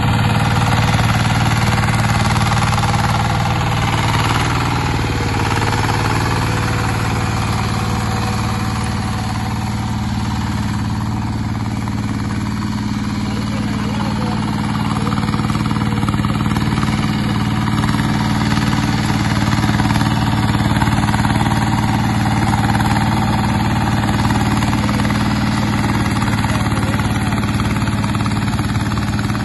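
VST 165DI power tiller's single-cylinder diesel engine running steadily under load as the tiller is driven through a flooded paddy field on cage wheels.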